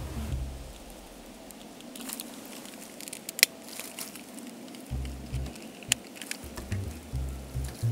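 Outdoor ambience with uneven low wind rumble on the microphone, coming in gusts in the second half, and a few scattered sharp clicks, the loudest about three and a half seconds in.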